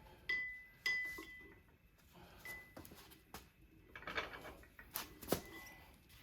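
Metal tools and parts clinking and knocking: a handful of sharp clinks, a few with a short metallic ring, the loudest near the end.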